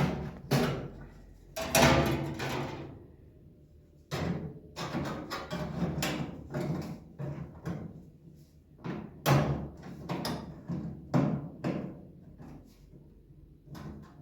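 A string of knocks, bangs and clatters from objects being handled and set down, the loudest bangs about two seconds in and again near the middle.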